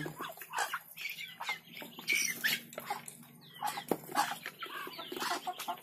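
A feeding flock of Muscovy ducks and chickens making many short, separate calls, clucks and squawks, one after another, some rising in pitch. A faint steady low hum runs underneath.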